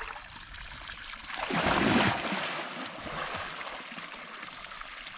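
Running water splashing, with a louder surge of splashing for about a second, about two seconds in.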